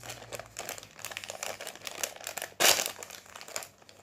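Crinkly foil packet being handled and torn open, with steady crackling and one loud rip about two-thirds of the way through.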